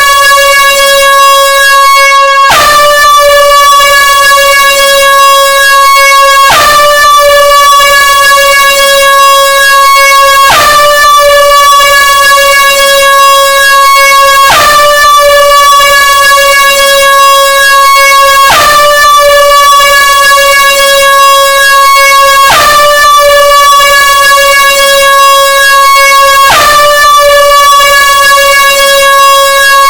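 Air horn sounding one long, unbroken, very loud note rich in overtones. About every four seconds the note restarts a touch higher and quickly settles back, as if the same blast repeats end to end.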